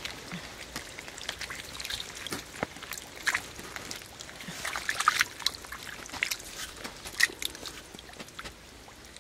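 Wet mud squelching and splatting in short, irregular crackles, a little louder about three and five seconds in.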